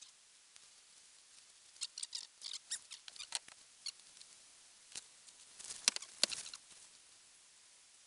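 Light clicks, crackles and rustles of hunting gear being handled: straps and a vest adjusted by hand, in two clusters, with the sharpest snaps about six seconds in.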